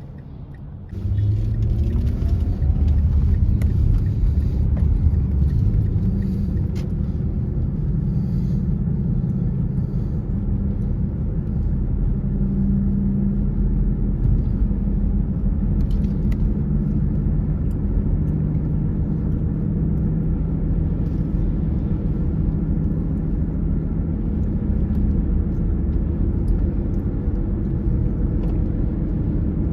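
Car driving: steady engine and road rumble, which jumps up sharply about a second in as the car pulls away and then holds, with the engine note shifting in pitch now and then.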